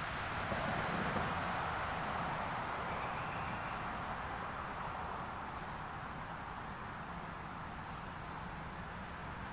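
Steady outdoor background hiss, with a few brief high chirps in the first two seconds.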